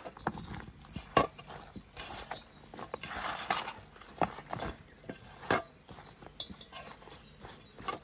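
Eggplant slices being handled and laid out on a large metal tray: a string of light clinks, taps and soft scrapes against the metal, the sharpest about a second in.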